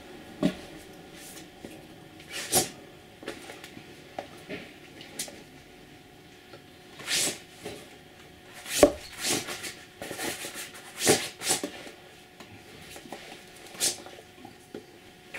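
Short, sharp taps and brushing sounds from hands striking and rubbing against each other and against clothing during fast signing, coming in irregular clusters with the loudest near the middle.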